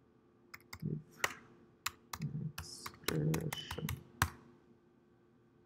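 Typing on a computer keyboard: an irregular run of keystroke clicks that stops about four seconds in.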